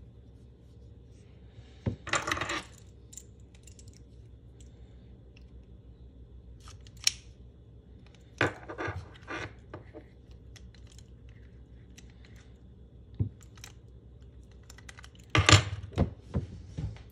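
Clicks of a Honda keyless remote's plastic casing being pressed shut, and clinks of its metal key ring being handled. Near the end comes the loudest clatter, as the fob and key ring are set down on a wooden table.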